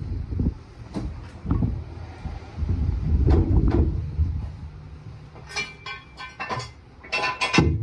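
A large tire being worked onto a riding lawn mower's wheel hub: dull thumps and bumps, then a quick run of sharp clattering knocks near the end.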